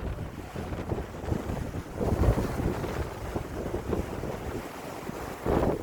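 Sea waves washing in on a rocky shore, with heavy wind buffeting the microphone; the surf swells up about two seconds in and again near the end.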